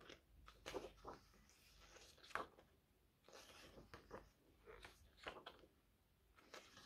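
Faint paper handling: the pages of a thick photobook being turned and smoothed by hand, a series of short rustles and soft slaps of paper.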